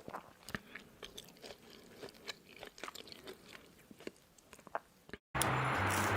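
Close-miked chewing: soft, irregular mouth clicks and smacks. About five seconds in it cuts off, and music with low bass notes and a hiss comes in.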